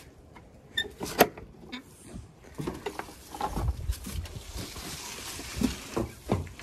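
A rusty sliding bolt on a wooden stable door drawn back with a few metal clicks and a sharp clack about a second in, then a horse's hooves thudding irregularly on the straw-bedded stable floor.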